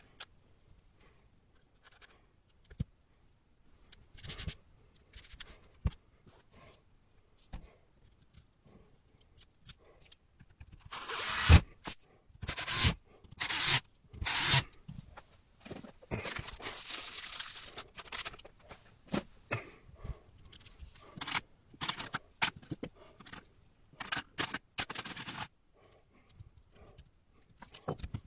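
Parkside cordless drill-driver running in several short bursts as it drives screws into a jigsaw's gearbox housing, between scattered clicks and clatters of parts and tools being handled. The recording is sped up.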